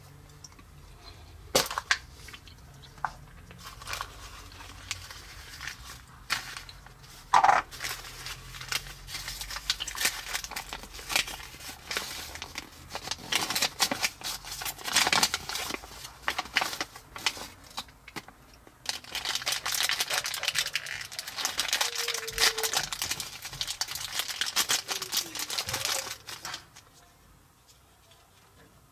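A few sharp clicks from a plastic Kinder egg capsule being pried open by hand, then long stretches of plastic wrapping and a paper leaflet crinkling and tearing as a toy is unwrapped. The crinkling is loudest and densest in the later part and stops shortly before the end.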